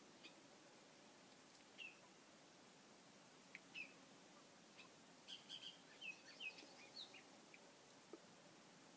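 Faint bird chirps over near silence: short, separate high calls, coming in a quicker run a little past the middle.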